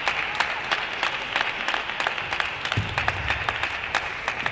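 Crowd of spectators applauding, a steady patter with individual claps standing out.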